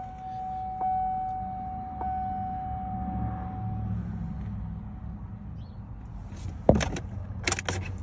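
Cadillac CTS dashboard warning chime ringing in an even tone about once every second and a bit while the key is turned and the engine does not crank, the anti-theft system blocking the start; the chime stops about four seconds in. A sharp knock near the end, followed by a few clicks, is the loudest sound.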